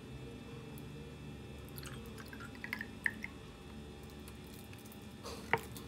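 Green tea milk pouring from a paper carton into a glass, with a few short glugs about halfway through. A single sharp knock near the end.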